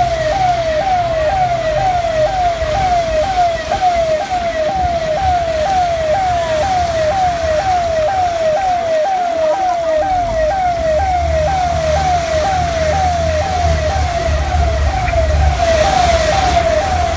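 Emergency vehicle's electronic siren sounding a fast yelp, about two pitch sweeps a second, over the low hum of the vehicle's engine, which grows louder about eleven seconds in.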